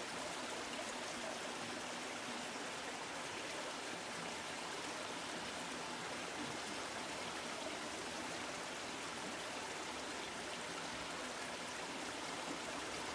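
Shallow creek trickling and splashing over rocks in a small cascade, a steady rush of running water.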